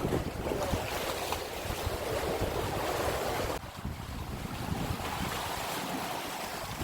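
Strong wind buffeting the microphone, with sea surf washing on the shore beneath it. The gusting eases a little about halfway through.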